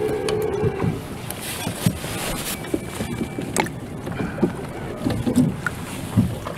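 Scattered knocks, clicks and rattles of gear being handled on a fishing kayak at sea, over a steady wash of water noise. A brief steady tone sounds in the first second.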